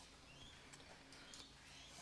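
Near silence: faint background hiss with a few faint ticks.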